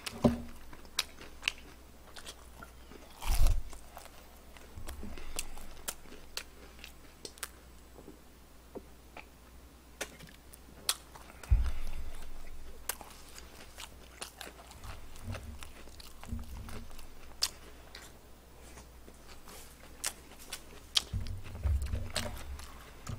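A person biting and chewing crispy fried chicken close to the microphone: scattered sharp crunches and clicks, with a few low thumps, the loudest about halfway through.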